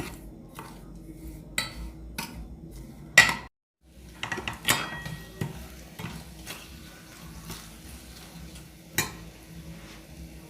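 A spoon clinking and scraping against a pan in irregular strikes while stirring sugar that is being melted and caramelised with spices and citrus peel. The sound cuts out completely for a moment about three and a half seconds in.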